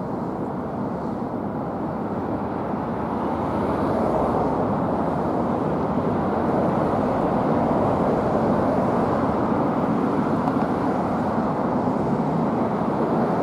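Fire engine driving along the road, a steady rumble of engine and road noise that grows a little louder about four seconds in.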